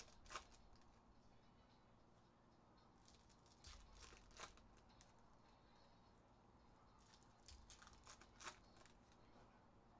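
Faint tearing and crinkling of Topps Merlin Chrome foil card-pack wrappers being ripped open by hand, in three short bursts: about half a second in, around four seconds and around eight seconds.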